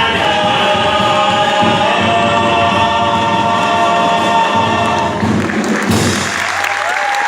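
Choir singing held chords that end about five seconds in, followed by the audience starting to applaud.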